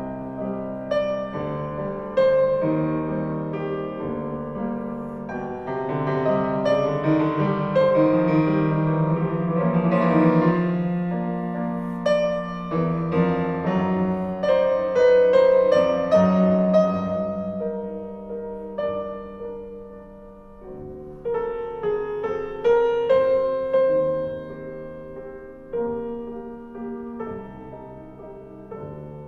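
Solo piano recording played back through Yamaha NS-3000 bookshelf speakers: a slow, expressive piece with sustained chords and melody that swells in the middle and grows quieter near the end.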